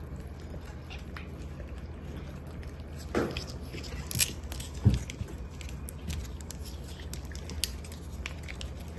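A cat eating eagerly, with irregular small chewing and biting clicks and a few louder knocks about three to five seconds in.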